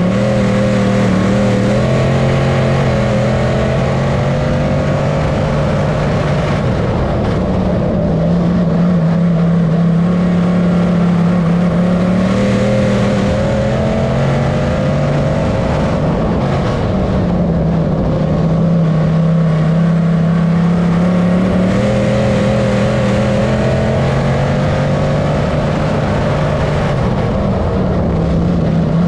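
GM 602 crate small-block V8 of a dirt-track modified race car, heard from inside the cockpit at racing speed. It revs up and lifts off again and again, its pitch rising and falling every several seconds as the car accelerates down the straights and backs off into the turns.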